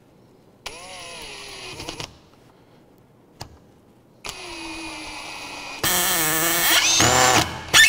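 Cordless drill driver driving a Phillips screw into wood on high speed: two short, gentle runs of the motor as the screw is started, then full speed, much louder, with a whine that climbs near the end as the Phillips bit slips in the screw head (cam out).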